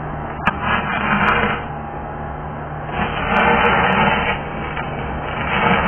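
MIG welding arc in bursts, three short runs of crackling and sputtering with sharp pops, over a steady low hum. The spattering is taken by the onlooker as a sign of wrong welder settings, in place of the smooth hiss of a well-tuned weld.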